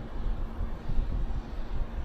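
Wind buffeting the microphone outdoors: a low, uneven rumble with a faint steady hiss above it.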